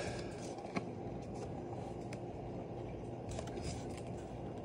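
Low steady room hum, with a few faint clicks and light rustles of paper sample cards being handled.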